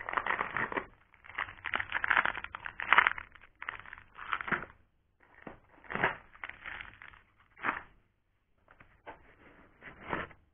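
Hands pulling parts out of a foam packing insert in a cardboard box: irregular bursts of foam and cardboard rubbing and scraping, with brief pauses about five and eight seconds in.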